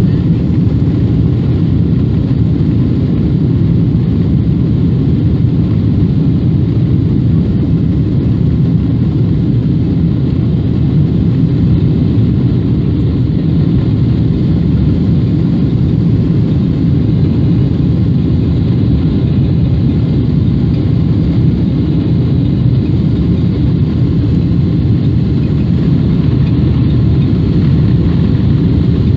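Jet airliner on its takeoff roll, heard inside the cabin: the engines at takeoff power and the runway rumble make a loud, steady, deep rumble.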